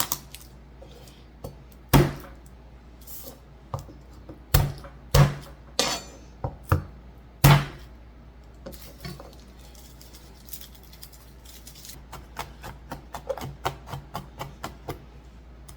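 Kitchen work sounds: scattered sharp knocks and clinks of a knife and dishes, then a run of quick, lighter taps near the end.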